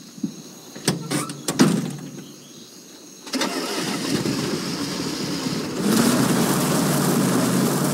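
A few short clunks, then about three seconds in a Chevrolet Monte Carlo's engine starts and runs, revving up louder a couple of seconds later.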